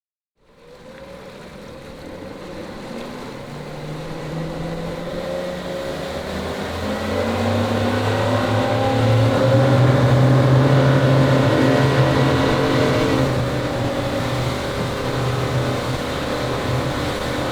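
Yamaha V8 boat engines running at high speed with open throttle, a steady engine drone. It fades in about half a second in, grows louder to its loudest about halfway through, then eases off a little.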